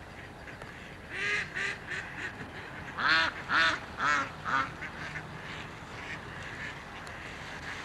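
Mallard ducks quacking in short repeated calls: a quieter run of about five about a second in, then four louder quacks around three to four and a half seconds in.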